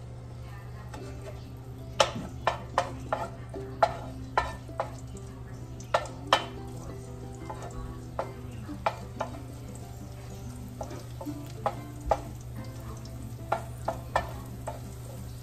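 Chopped garlic frying in oil in a nonstick wok, stirred with a wooden spoon. From about two seconds in, the spoon knocks against the pan in sharp, irregular clicks.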